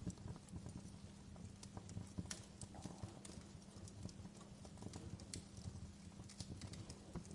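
Wood fire crackling: irregular sharp pops and snaps over a low, steady rumbling hum.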